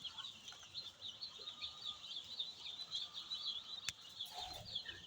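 Many poultry chicks peeping at once, a dense, continuous chorus of short high chirps that thins out near the end, with one sharp click about four seconds in.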